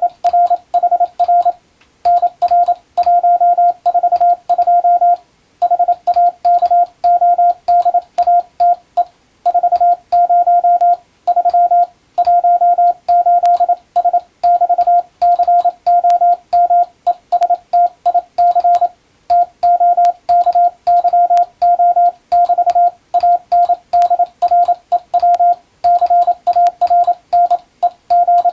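Morse code (CW) practice tone: a single steady beep keyed on and off in fast dots and dashes, sending groups of characters separated by short pauses.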